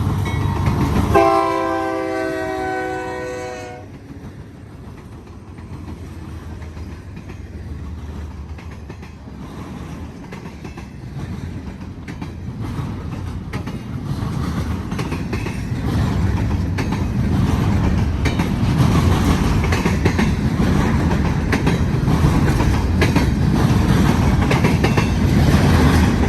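Diesel freight locomotives' air horn sounding one steady multi-tone chord from about a second in to about four seconds, then the low rumble of the approaching BNSF intermodal train's locomotives growing steadily louder, with wheels clicking on the rails.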